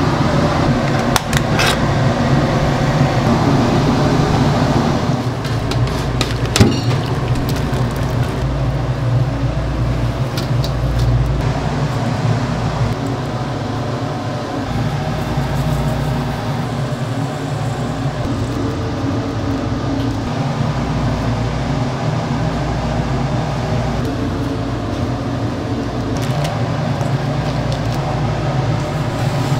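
Steady mechanical hum of a commercial kitchen's fans and gas range, with a few light clinks of steel bowls and spoons.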